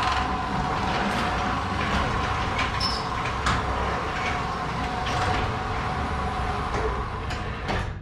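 Garage door opener running as the sectional door rolls down its tracks: a steady motor hum with rumbling and a few clicks. It stops with a clunk near the end as the door shuts.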